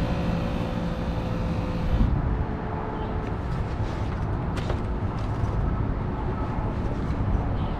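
Rivian R1T onboard air compressor running with a steady hum while pulsing air into a tire, cutting out about two seconds in. A low, even rumble carries on after it.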